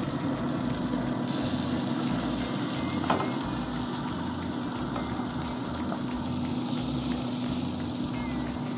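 Traeger pellet grill running with a steady hum, over an uneven low rumble. A single light clank about three seconds in as the chicken is lifted off the metal grate with tongs.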